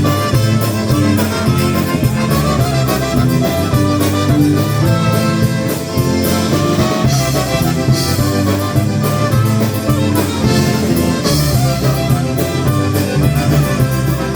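Live polka band playing an instrumental introduction, with accordion and a drum kit keeping a steady beat.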